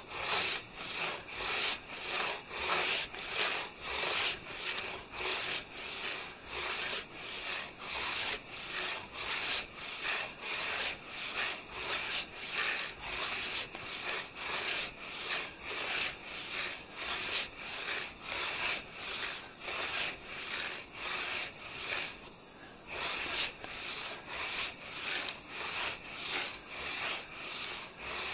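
Hand saw cutting through a maple log with steady back-and-forth strokes, about two a second, pausing briefly about three quarters of the way through before going on. Birds sing faintly in the background.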